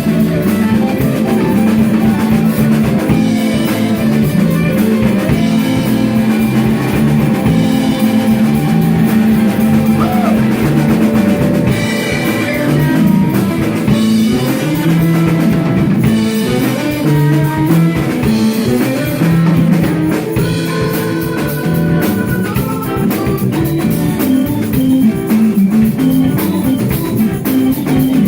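Rock band playing an instrumental, with drum kit, guitar and a moving bass line throughout.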